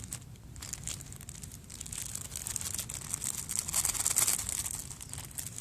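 Plastic ramen noodle wrapper crinkling as it is handled, with irregular crackles.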